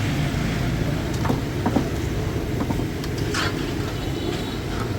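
Steady low rumble of background noise, broken by a few light clicks and clinks and a short hiss about three and a half seconds in.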